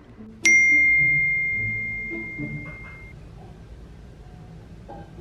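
A single bright bell ding, struck about half a second in and ringing out as it fades over about two and a half seconds. It is a bell-like sound effect laid over the cut to the wide kitchen shot.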